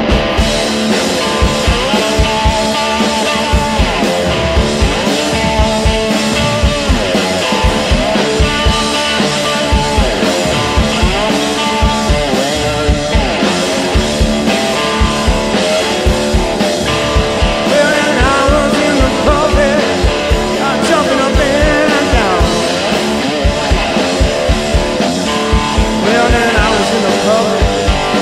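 Background rock music with guitar, a steady drum beat and a singing voice.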